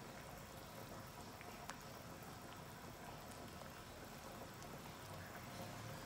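Pot of water boiling with a beef tongue in it: a faint, steady bubbling with a few small pops.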